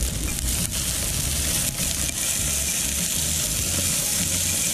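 Catfish pieces frying in oil in a pan over a campfire: a steady sizzle, with lemon juice being squeezed into the hot pan.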